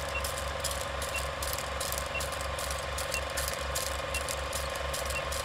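Film projector running: a steady mechanical clatter with a low flutter several times a second, a steady hum and crackle, and a faint short high beep about once a second marking the countdown leader.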